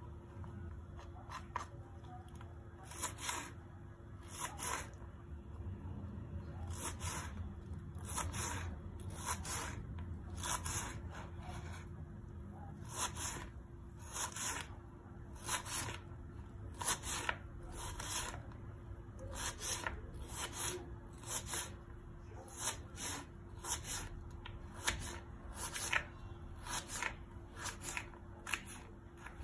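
Kitchen knife cutting raw carrot on a wooden cutting board: crisp cuts, about one or two a second, slicing strips and dicing them into cubes.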